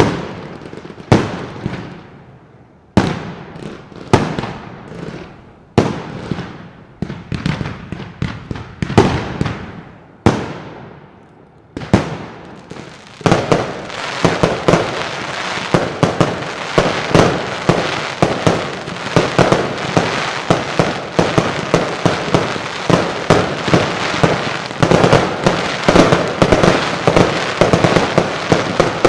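Professional fireworks display: shells burst with sharp bangs, each ringing out, about once a second at first. A little before halfway, the bangs become a dense, fast, continuous string of reports and crackle.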